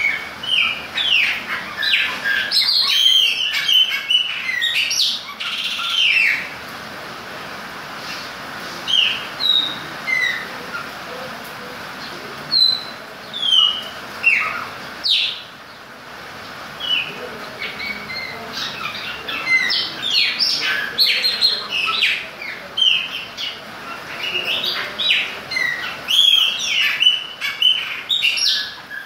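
Caged chopi blackbirds singing: loud, varied whistled notes and rapid chattering phrases in bouts, with short pauses between them, over a steady background hiss.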